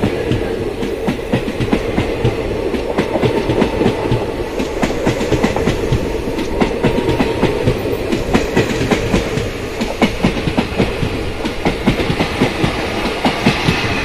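Nagercoil–KSR Bengaluru Express passenger coaches passing at speed through a station without stopping. Their wheels clatter quickly and continuously over the rail joints above a steady rumble.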